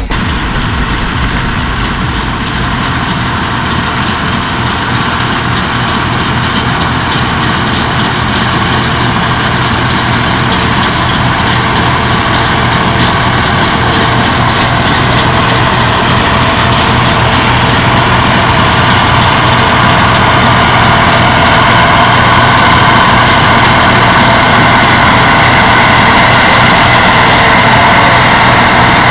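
Bizon Z056 combine harvester running while harvesting, its diesel engine and threshing machinery making a steady, dense mechanical noise that grows louder toward the end as the machine passes close by.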